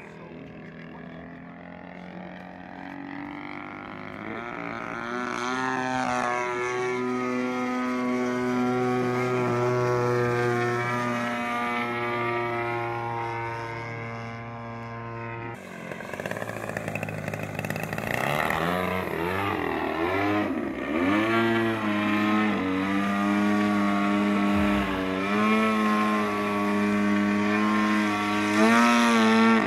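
Radio-controlled Extra NG aerobatic plane flying, its engine and propeller droning and shifting up and down in pitch as the throttle and manoeuvres change. It grows louder over the first few seconds, cuts off abruptly about halfway through, then picks up again louder and more wavering.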